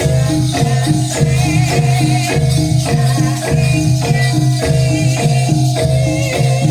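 Javanese jaranan ensemble music: tuned struck percussion repeating short notes in an even rhythm over a steady low pulse, with a shaking rattle sound.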